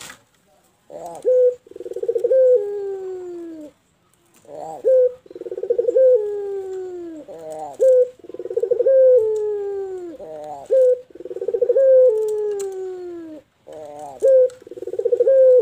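Barbary dove (puter) cooing: about five phrases in a row, each one or two short notes followed by a long coo that slides down in pitch.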